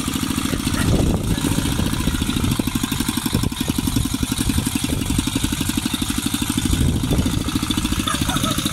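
Two-wheel walking tractor's small single-cylinder engine running steadily with a rapid, even chugging beat.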